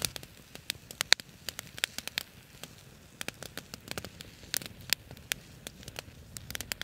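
Wood fire crackling, with irregular sharp pops and ticks over a faint hiss.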